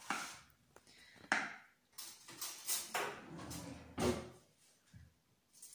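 A few short rustles and light clinks of kitchen handling, separated by quiet gaps: cookies being moved about on a foil-lined metal baking tray and a spoon working in a bowl of icing glaze.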